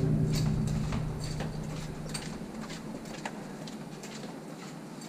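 Footsteps on a concrete floor inside a concrete tunnel, a sharp irregular step about twice a second. A low drone fades out over the first two seconds.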